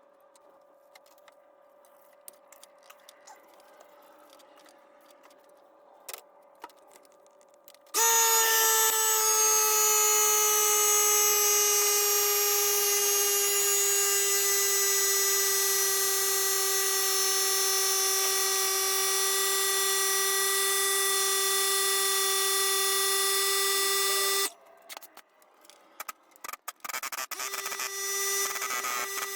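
Electric power tool motor running with a steady high-pitched whine for about sixteen seconds, its pitch dipping slightly as it starts, then cutting off. Faint clicks of tool handling come before and after it.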